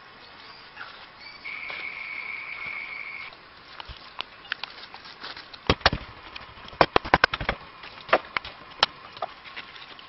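A steady high-pitched buzz lasting about two seconds near the start. About halfway in comes a quick run of a dozen or so sharp knocks and taps, the loudest being several close together.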